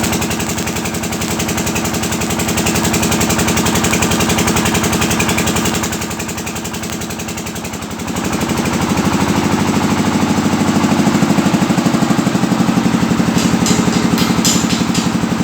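An engine running steadily with a fast pulsing beat. About eight seconds in, its sound drops lower and grows louder.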